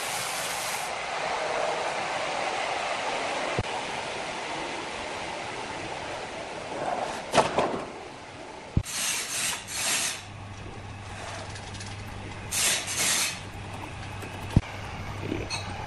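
Steady running noise of horizontal band sawmill machinery, with several short hissing bursts through the middle and three sharp knocks. A low steady hum sets in about two-thirds of the way through.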